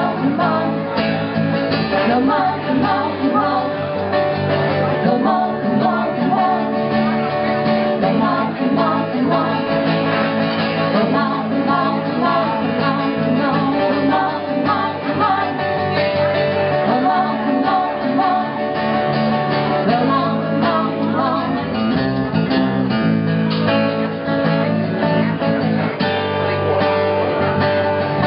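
Live band song: strummed acoustic guitar with a second, electric guitar and singing.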